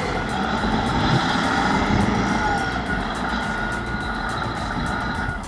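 Heavy diesel earthmoving machine running steadily with a low engine rumble. A faint high tone comes and goes over it several times.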